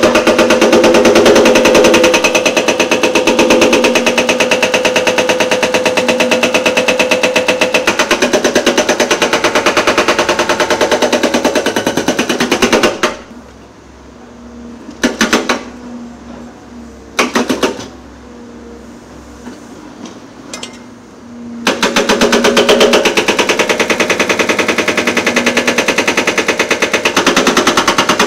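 Excavator-mounted hydraulic breaker hammering with rapid, evenly spaced blows over a running engine; it stops about halfway through, gives two short bursts, then hammers steadily again.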